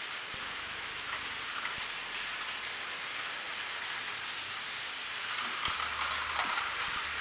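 Many battery-powered Takara Tomy Plarail toy trains running together on plastic track, their small motors and wheels making a steady, dense whirring hiss with light clicking. A few louder clacks come near the end.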